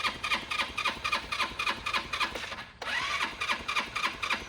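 GY6 scooter's single-cylinder four-stroke engine cranking on its electric starter in an even chugging rhythm, about six pulses a second. It stops briefly about three seconds in, then cranks again, trying to catch.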